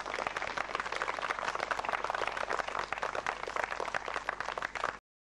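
Crowd applauding: many hands clapping in a dense, steady patter that cuts off abruptly about five seconds in.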